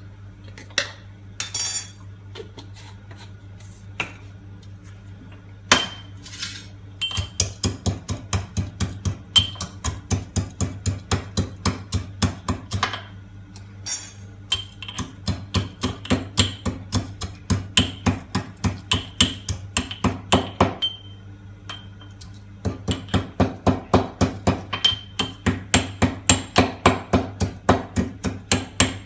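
Whole spices being pounded with a pestle in a mortar: a few single knocks, then steady strikes at about three a second, many with a short ringing. The strikes pause briefly about three-quarters through.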